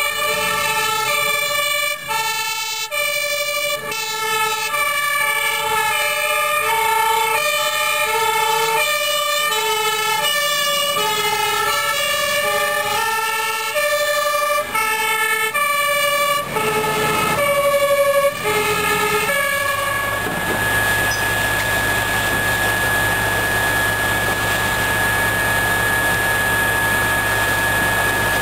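Two-tone sirens of Dutch fire engines on call, stepping between a high and a low note about twice a second, with more than one siren sounding at once. About two-thirds of the way through, this gives way to a steady machine drone with a constant high whine.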